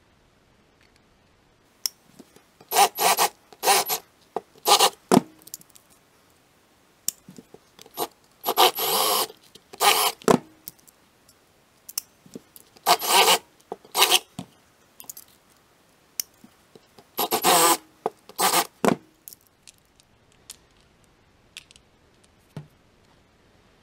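Short rasping strokes of metal scraping on a small steel bushing held in locking pliers, coming in clusters of two or three with a longer stroke of about a second near the middle. Light ticks of small metal pieces being handled near the end.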